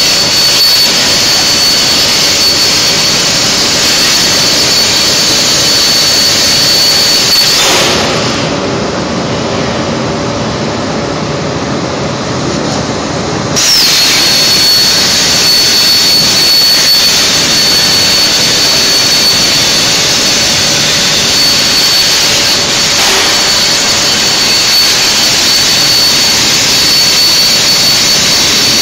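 Hypertherm HyPerformance CNC plasma torch cutting steel plate: a loud, steady hiss with a thin high whistle. About eight seconds in the arc cuts off for some six seconds, leaving a lower rumble, then re-fires sharply and cuts on.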